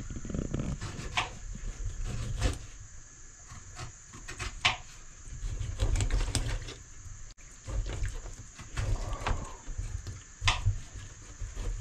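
Kitchen knife scraping scales off a whole tilapia on a stainless steel sink drainboard: irregular rasping scrapes and sharp clicks, over a low rumble.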